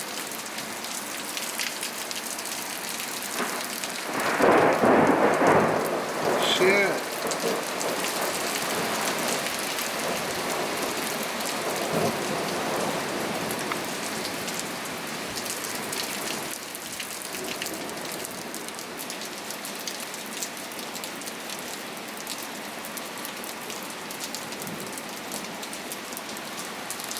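Heavy rain falling steadily. About four seconds in, a louder rumbling swell rises over it for a few seconds and then dies back.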